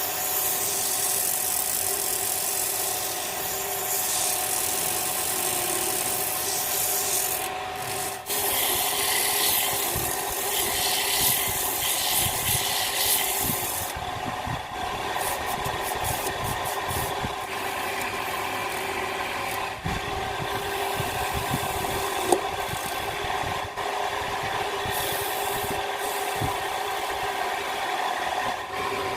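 Wood lathe running with a steady motor hum while the spinning wood is worked, giving a continuous rough rubbing noise over the hum.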